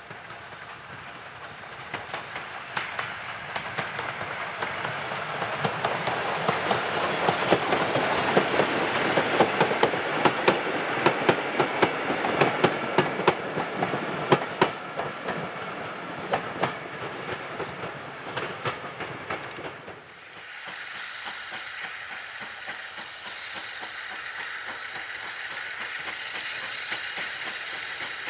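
Ex-Port Talbot 0-6-0 saddle tank 813 and its vintage carriages passing, the wheels clicking irregularly over rail joints, growing loud in the middle and fading. About twenty seconds in it changes abruptly to a steady hiss of steam from a black steam locomotive leading a train.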